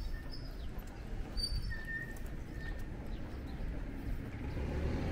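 Outdoor street ambience: footsteps on a paved pavement over a steady low rumble, with a few short, high bird chirps.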